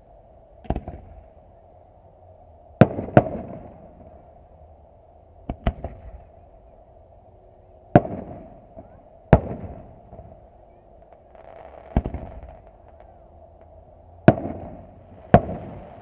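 Aerial fireworks going off at a display: about ten sharp bangs at uneven spacing, some in quick pairs, each trailing off in an echo.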